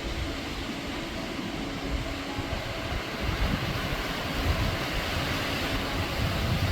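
Wind buffeting the microphone: a steady rushing noise with an uneven low rumble that swells and dips, growing a little louder about halfway through.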